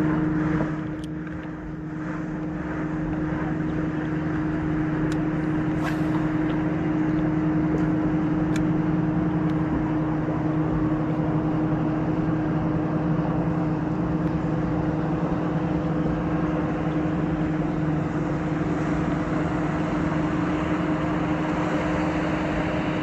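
Boat motor running with a steady hum. The sound dips briefly about a second in, then holds level.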